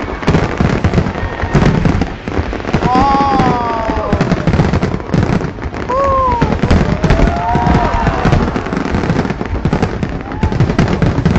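Fireworks going off in quick succession, a dense run of bangs and crackles, with onlookers' voices rising and falling over them.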